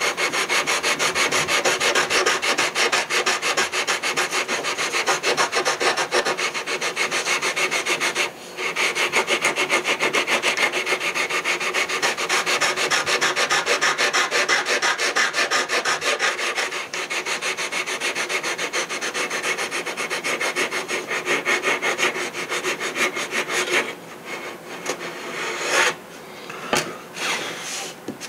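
80-grit sandpaper rubbed in rapid back-and-forth strokes over a soft balsa chin block, taking down a high spot. The sanding runs steadily with a brief pause about 8 seconds in, then turns lighter and intermittent in the last few seconds.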